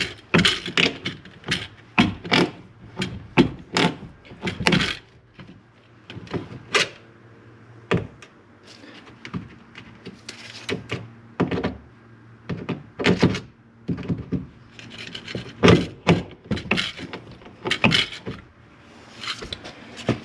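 Irregular run of sharp clicks and knocks from hand work on a car door's inner metal panel, in quick clusters with short pauses between them.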